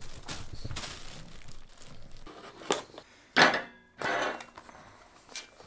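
Plastic wrapping crinkling as a pug carries it in its mouth, then a few sharp clicks and a short rustle as hands open a small cardboard box.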